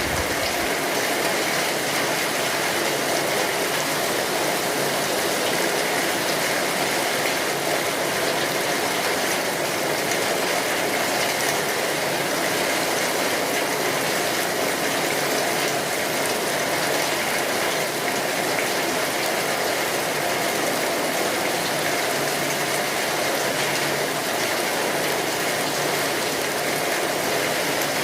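Steady heavy rain drumming on a tin roof: a dense, unbroken patter of drops on sheet metal.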